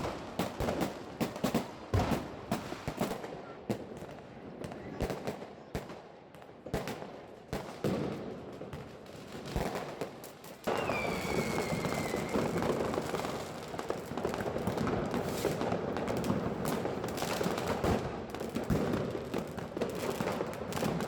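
New Year's fireworks and firecrackers going off: scattered sharp bangs and crackles. About halfway through, this gives way suddenly to a dense, continuous barrage, with one whistle falling in pitch.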